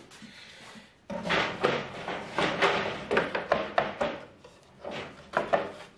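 Wooden door pieces and clamps being handled and shifted into place: a dense run of scraping and clattering, then a few separate knocks near the end.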